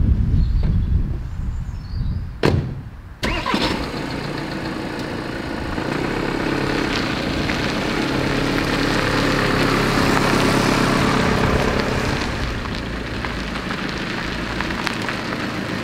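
A car door shuts about two and a half seconds in, and moments later the VW Transporter T6's four-cylinder engine starts and settles into running. The engine then pulls the van away, growing louder as it passes close by and easing off again near the end.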